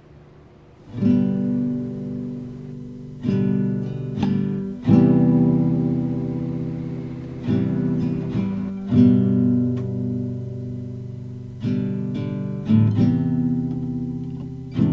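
Background music: a slow acoustic guitar instrumental, chords strummed every second or two and left to ring out.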